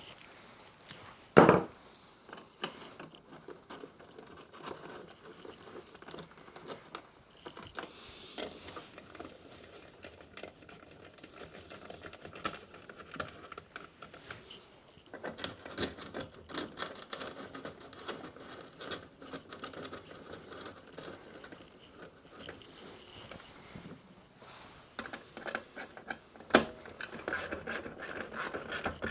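Hand tools and small metal engine parts clinking, scraping and rattling as a Briggs & Stratton lawnmower engine is put back together, with one loud knock about a second and a half in.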